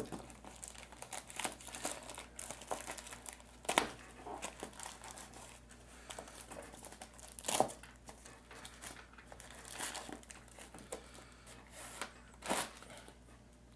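Thin blue wrapping torn and crumpled by hand off a cardboard box: steady irregular crinkling, with louder rips about four seconds in, near eight seconds and near the end.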